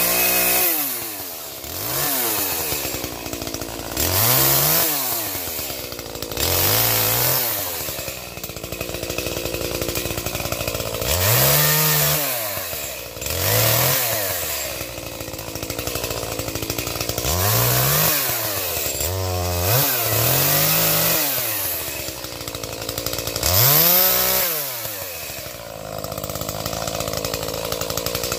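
Gas chainsaw cutting firewood, its engine revving up and dropping back over and over, about every two seconds.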